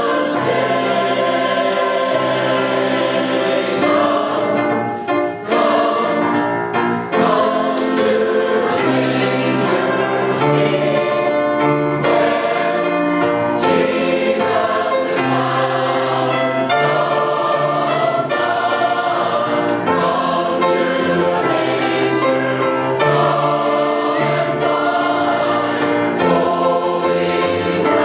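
Church choir singing in harmony, with several voice parts holding sustained chords.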